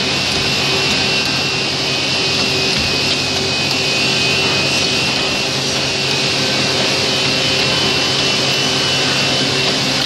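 Automatic wood-drilling machine running steadily, its motors giving a constant hum with a high whine on top.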